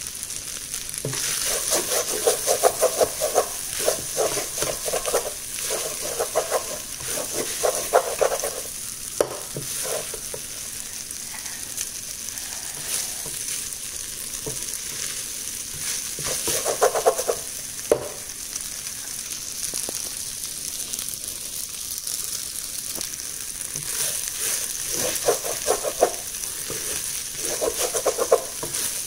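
Fried rice with dried tuna sizzling in a wok, with a steady high hiss. A wooden spatula stirs and scrapes it in spells of rapid strokes: near the start, again in the middle, and near the end.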